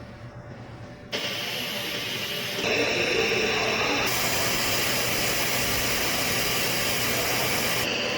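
KEPUNI orbital TIG pipe-welding machine at work: a steady hiss starts suddenly about a second in, steps up louder near three seconds, and from about four seconds becomes a fuller, steady hiss that holds.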